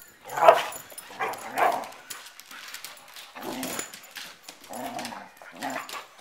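Two dogs, a border collie and a Catahoula, barking and yipping in short bursts as they play-fight, about five or six bursts in a row.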